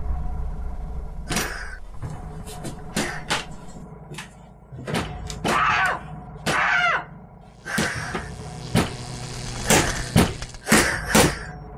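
Horror-film sound design: a deep low rumble fading away, over which come about a dozen short, sharp noises, some with a sliding pitch, bunched closer together in the second half.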